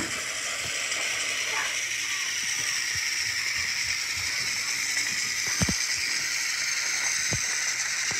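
Motorised toy train running along plastic track: a steady whir of its small motor and gears, with a few light clicks.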